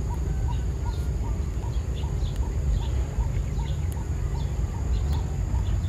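A short animal call repeating evenly, about two and a half times a second, with scattered higher chirps, over a loud low rumble.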